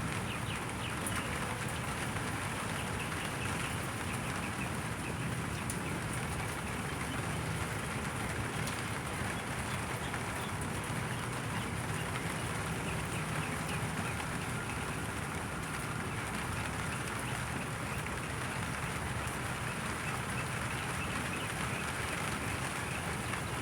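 Rain falling steadily, a dense even patter of drops on a surface.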